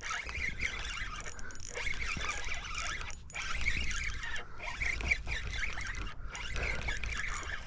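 Gulls calling repeatedly over the water, with wind rumbling on the microphone.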